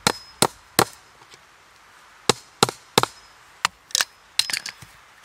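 Hammer driving a fence staple into a wooden post: sharp blows about 0.4 s apart, three at the start, then after a pause of about a second and a half a further run of blows ending in quicker, closely spaced taps.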